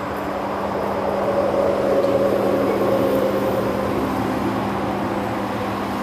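Steady rush of road traffic, swelling about two seconds in and easing off again.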